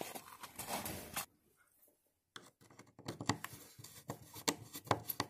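Hand screwdriver turning the screws of a wall switch cover plate: a run of small clicks and scrapes from about halfway in. Before it, about a second of rustling from clothing and movement, then a moment of silence.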